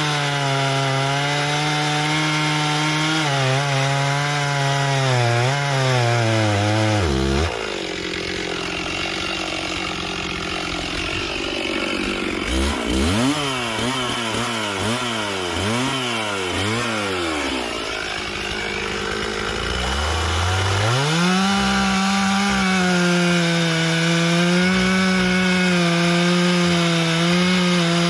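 Chainsaw engine running at full throttle cutting through a log. It drops to idle about seven seconds in, is revved in about six quick blips, then comes back up to full speed and cuts again from about twenty seconds in.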